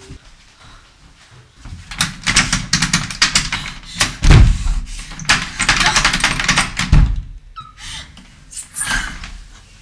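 A locked apartment door being shaken and pushed against its frame: a fast run of rattling knocks, with two heavy thumps about four and seven seconds in, then a few lighter knocks. The door does not open because it is locked from outside.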